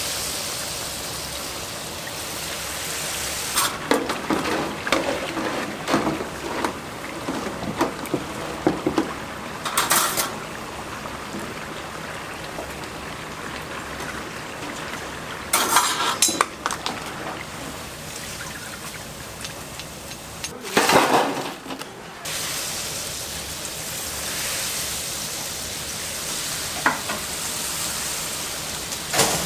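Food frying in hot oil with a steady sizzle, and metal utensils clattering against pans and trays in bursts now and then.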